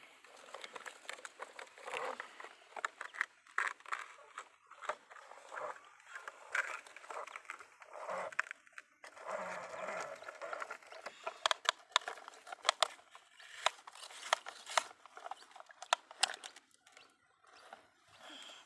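Plastic toy construction vehicles being handled on wet mud: scraping and rustling, with many sharp plastic clicks and knocks, most frequent in the second half.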